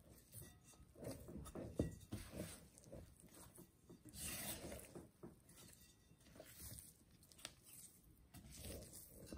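Hands kneading sticky bread dough in a glass bowl: quiet, irregular squishing and rubbing of the dough against the bowl.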